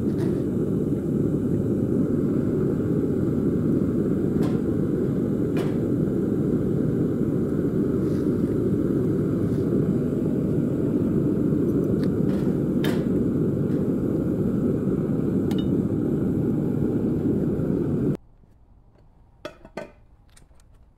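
Propane melting furnace burner running with a steady low rush, with a few sharp clinks of steel tongs against graphite ingot molds. The burner sound cuts off suddenly about 18 seconds in, leaving a few faint clinks.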